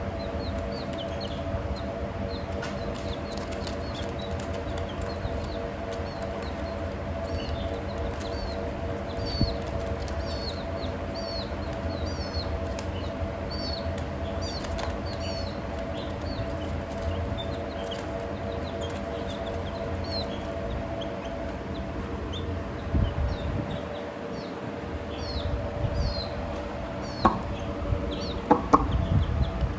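Young chicks peeping: short, high chirps repeating every half second or so, over a steady low hum. A few sharp knocks near the end.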